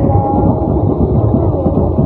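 Drums beating fast and without a break, loud and muffled, with a faint drawn-out tone above them.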